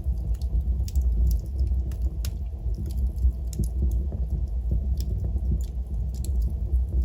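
Fireplace wood fire crackling: irregular sharp pops and snaps over a steady low rumble of the burning fire.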